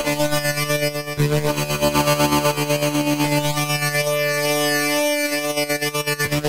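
Dubstep synth lead preset playing sustained notes rich in overtones, with a fast, even pulse in its loudness. The notes change about a second in and again about five seconds in.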